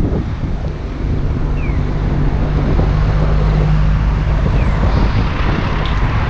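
Wind rumbling on the microphone, with a steady low hum through the middle and a few faint short high chirps.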